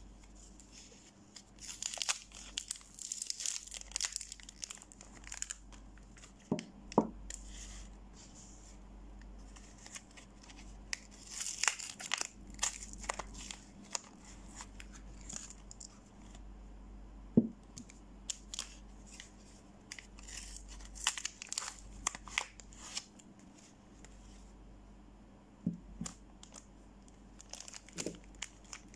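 Soap-bar wrappers crinkling and tearing as they are opened by hand, in several bursts, with a few short soft knocks in between.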